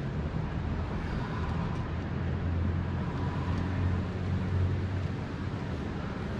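Steady low rumbling background noise, like distant traffic, with a couple of faint ticks.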